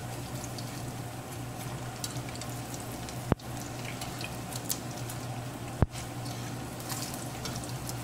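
Battered banana pieces deep-frying in hot oil in a wok: a steady sizzle scattered with small crackles and pops while metal tongs turn them over. Two sharp clicks stand out, about a third and two-thirds of the way through.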